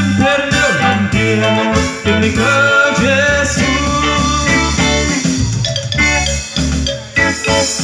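Live band music played through PA speakers: electric guitar, keyboard and bass with a steady beat, and a man singing into a microphone over it until he lowers the mic near the end.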